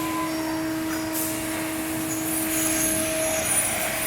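Steady factory machinery noise: a constant hum with an even hiss over it.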